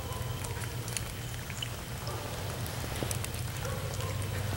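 Rain falling steadily, an even hiss with scattered sharp ticks of single drops.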